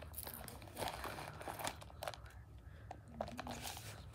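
Close rustling and crinkling with a few light clicks: hands and a sleeve handling small things right next to the microphone.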